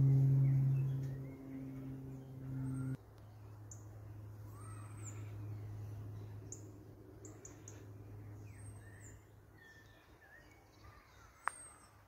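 A loud, steady low drone of several held tones, like a singing bowl, cuts off suddenly about three seconds in. Then small woodland birds chirp: short, high calls, some arched, with lower chirps between them, and one sharp click near the end.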